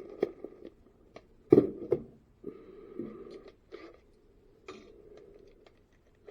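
Tools being handled and sorted through at a workbench: scattered clicks, light rattles and brief scrapes, with one sharper knock about a second and a half in.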